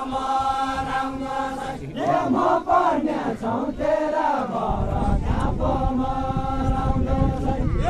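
Unaccompanied group of voices singing a Deuda folk song in unison: long drawn-out held notes, with a wavering melodic phrase in the middle. A low rumble joins under the singing about halfway through.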